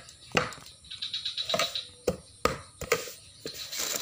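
Hard plastic toy kitchen pieces clacking against each other as a hand rummages in a plastic bag of toys: a handful of sharp, separate clacks at uneven intervals.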